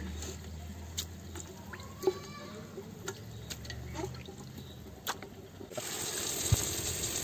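Cut raw guinea fowl pieces are tipped from a pressure-cooker pot into masala in an aluminium cooking pot, making wet plops and several sharp knocks of a wooden spatula against the pot. Near the end the sound changes suddenly to a steady hiss.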